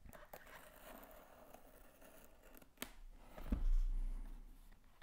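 A scalpel blade slicing through sellotape on a cardboard box: a faint scratchy cutting sound, with a sharp click a little before the three-second mark and a low thump soon after.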